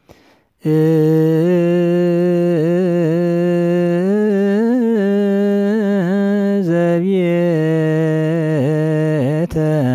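A single voice chanting an Orthodox Tewahedo hymn in Ge'ez: one long, drawn-out melismatic line on a sustained pitch with slow wavering ornaments. It enters about half a second in after a brief pause and breaks off at the very end.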